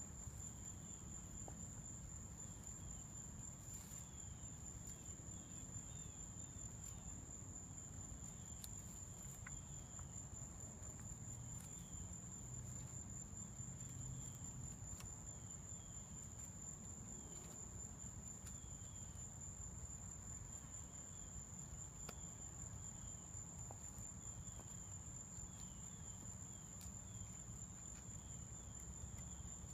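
Insects sounding a steady, unbroken high tone, with short chirps repeating in small groups every second or two, over a low rumble. Faint scattered cracks come from a leopard chewing on sticks.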